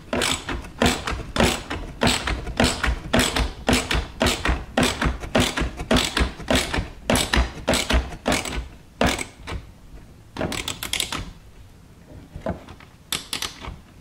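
Hand ratchet clicking in quick repeated strokes as screws are snugged down, about three clicks a second. Near the end it slows to a few scattered clicks.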